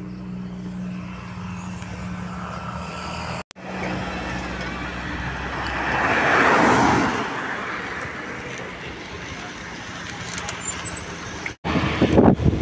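A road vehicle passing close by, its engine and tyre noise swelling to a peak about six to seven seconds in and then fading. The sound drops out briefly twice, about three and a half and eleven and a half seconds in.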